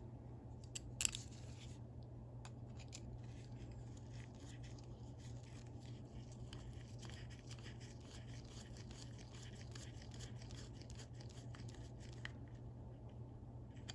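Small machine screws being turned back into the cover plate of a vintage Snap-on 71-M ratchet: faint scratching and small clicks of metal on metal, with a sharper click about a second in, over a steady low hum.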